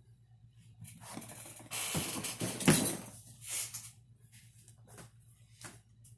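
Handling sounds as a large plastic storage tote is lifted and moved off a table: a stretch of scraping and rustling with one sharp knock about two and a half seconds in, then a few shorter rustles as a fabric bag is opened and rummaged.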